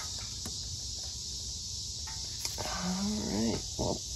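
A man's short strained groan about three seconds in, as he strains to twist an overtight oil filter off by hand, over steady cricket chirping.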